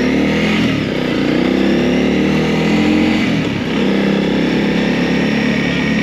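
Honda CRF300L's single-cylinder four-stroke engine under way, the revs climbing and dropping off twice, a little under a second in and a little past the middle, as it is shifted up through the gears, then holding a steady pitch.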